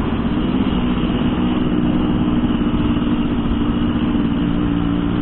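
Motorcycle engine running at a steady speed while riding, with an even rush of wind and road noise.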